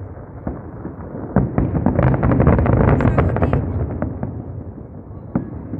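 Fireworks going off: a dense run of bangs and crackling starts about a second and a half in and is loudest around the middle, then dies down, with one single sharp bang near the end.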